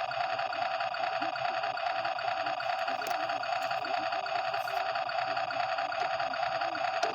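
1:16 toy RC truck giving off a steady, rapid mechanical buzz that holds at an even level throughout.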